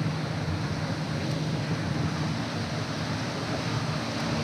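Motorboat engine running close by as a steady low drone, over a wash of water and wind noise.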